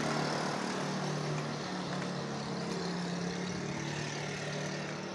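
A steady, low engine drone over a hiss of outdoor background noise, easing slightly toward the end.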